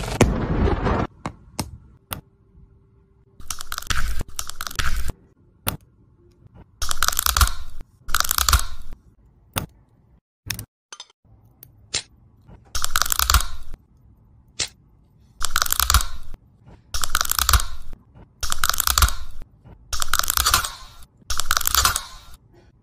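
Eggshell crackling and crunching as a speckled shell is picked off with tweezers. It comes as about ten short bursts with small clicks between them.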